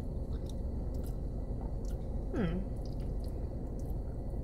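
Close-up chewing of macaroni and cheese: soft wet squishes and small mouth clicks. About halfway through comes a short falling "mm".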